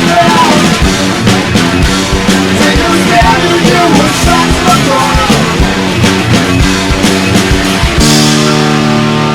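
Rock band playing loud and fast: drums, distorted guitars and a singing voice, which stop about eight seconds in on a single held chord left ringing and slowly fading.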